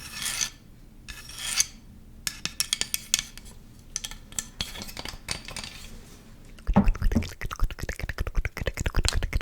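Close-miked ASMR clicks and taps. They are scattered at first, with two short hissing sounds in the first two seconds, then come fast and dense from about two-thirds of the way through.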